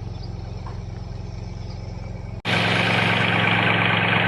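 An engine running steadily at a low hum. About two and a half seconds in, it cuts abruptly to a much louder, harsher engine or machine noise that runs steadily on.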